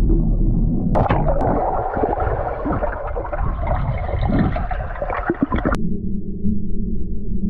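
Muffled underwater sound in a swimming pool: a low rumble, then from about a second in, several seconds of bubbling, gurgling water with a few sharp pops. It cuts off suddenly near the end, leaving a low steady hum.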